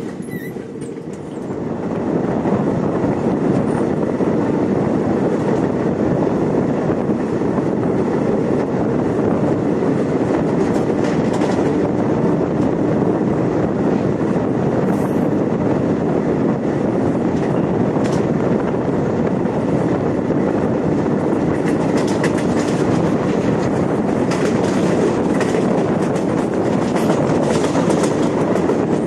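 Running noise of a moving train: a steady rumble of wheels on rails that grows louder about two seconds in, then holds.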